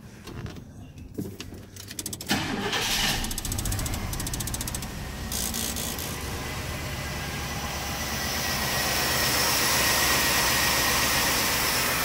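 1997 pickup truck's V8 engine started: it cranks about two seconds in, catches, and settles into a steady idle. The engine has a dead cylinder, number two, whose injector pulses but delivers no fuel.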